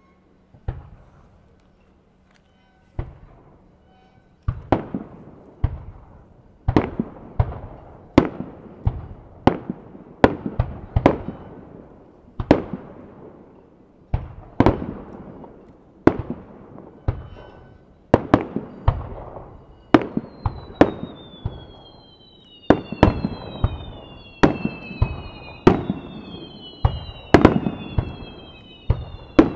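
Aerial firework shells bursting, each a sharp bang with an echoing tail: a few spaced bangs at first, then a rapid run of them from about four seconds in. From about twenty seconds in, several falling whistles overlap one another above the bursts.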